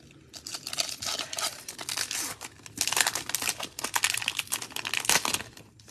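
Foil wrapper of an Upper Deck 2021-22 Series Two hockey card pack being torn open and crinkled by hand, a dense run of sharp crackles with a brief pause about halfway.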